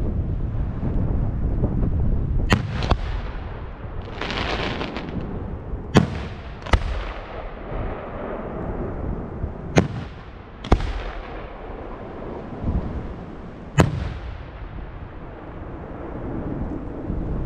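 Four-inch aerial firework display shells going off one after another, a sharp boom about every four seconds, each followed by a rolling echo.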